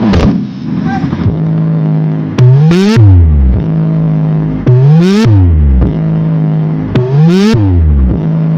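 Electronic sound-check effect: a steady buzzy synth tone that, four times, breaks into a quick rising sweep and then a deep bass sweep falling away, about every two and a half seconds.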